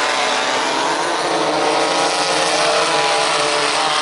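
Several 1600cc off-road race buggies, air-cooled Volkswagen flat-four engines, running hard on a dirt track. It is a steady, loud blend of engines at high revs, their pitch rising and falling as the drivers get on and off the throttle.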